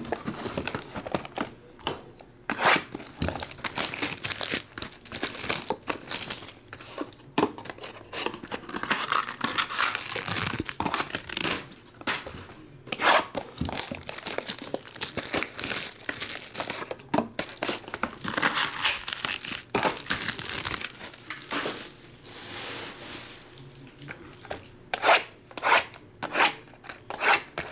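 Trading-card box packaging being torn open: ripping and crinkling of wrapping and packs, with sharp rustles and snaps.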